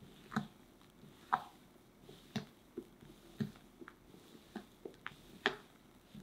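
Spatula folding flour into whipped egg foam for a sponge-cake batter in a glass bowl: soft squishing of the batter, with short sharp knocks of the spatula against the glass at irregular spacing, the loudest roughly a second apart.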